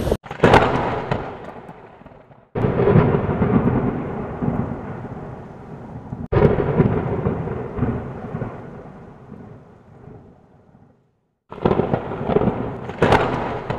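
A series of deep, thunder-like rumbles, about five, each starting suddenly and dying away over a few seconds, with brief silent gaps between them.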